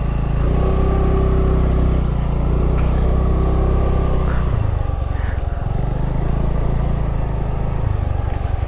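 Motorcycle engine running while riding, its pitch shifting a couple of times, about halfway through and near the end, over a steady rushing hiss.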